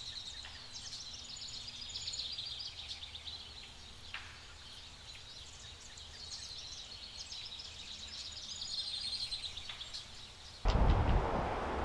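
Small songbirds chirping and trilling in woodland. Near the end a sudden loud rush of wind on the microphone cuts in.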